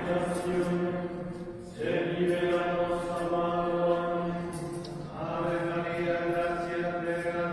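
Liturgical chant sung in long held notes, with new phrases starting about two and five seconds in.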